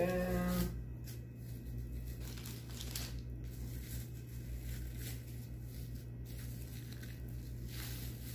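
Thin plastic bag crinkling and tearing in repeated irregular rustles as it is peeled off a wrapped bottle, over a steady low hum. A brief vocal sound at the very start.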